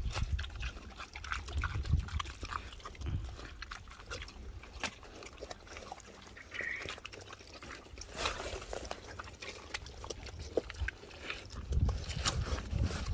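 Pigs eating: wet chewing and smacking with many small irregular crunches, and low grunts about two seconds in and again near the end.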